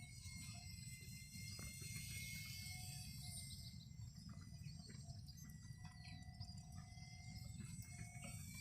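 Faint outdoor ambience: wind rumbling on the microphone, with insects and birds calling. A thin steady high whine runs underneath.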